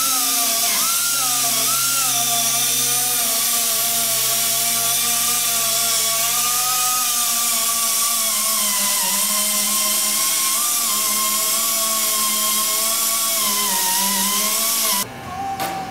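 Handheld pneumatic rotary tool, an air drill on a yellow air hose, running continuously at the rim of an aircraft's fuel filler opening, with a high whine that wavers in pitch as it loads and eases. It cuts off abruptly about a second before the end.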